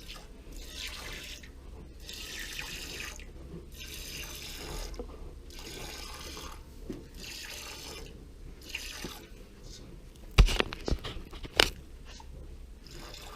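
Squirts of milk hissing into a pail during milking, one spurt about every second or so. Two sharp knocks stand out near the end.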